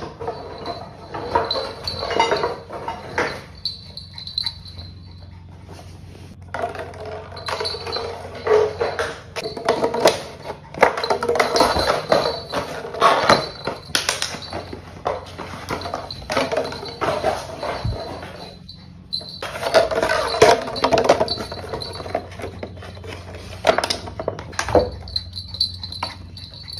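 A Shih Tzu puppy playing with a plastic bottle and toys on a hard floor: irregular crinkling, clattering and scrabbling in uneven bursts, with short quieter gaps between them.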